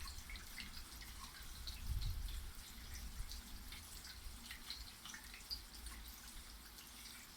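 Rain falling, heard as many separate small drops ticking irregularly, over a low rumble that swells about two seconds in.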